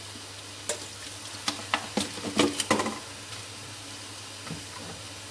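Faint steady sizzle of a stir-fry in the pan, with a run of sharp clicks and clinks of kitchen utensils and containers from under a second to about three seconds in as seasoning is added.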